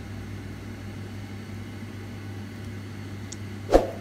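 A steady low hum, then near the end a single loud knock of a kitchen knife striking a wooden chopping board while cutting mushrooms.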